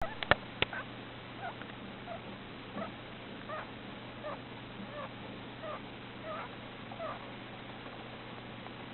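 Russian dwarf hamster squeaking in its sleep: short, faint chirps, some sliding in pitch, a little more than once a second. A few sharp clicks come right at the start.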